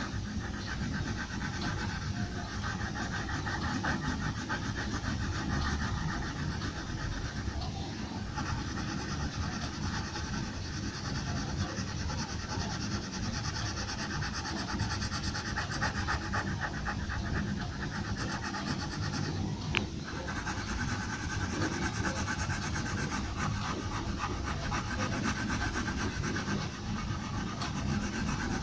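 Pencil shading on paper: quick, even back-and-forth strokes scratching over a steady low hum, with one sharp click about twenty seconds in.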